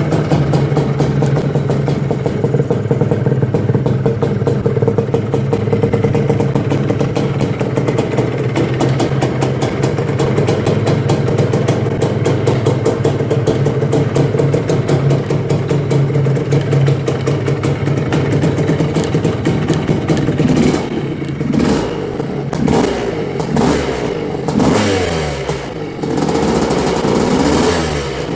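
Bultaco Pursang Mk12 250 motocross bike's two-stroke single-cylinder engine running steadily at a constant speed, then, about twenty seconds in, revved in a run of quick throttle blips, each rising and falling in pitch.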